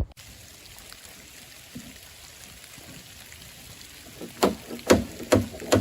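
Steady hiss of mixed rain and sleet coming down hard. Near the end come four sharp knocks, about half a second apart.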